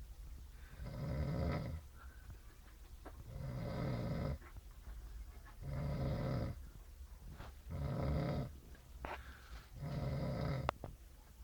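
A man snoring in his sleep: a rhythmic, rattling snore about every two to two and a half seconds, five in a row.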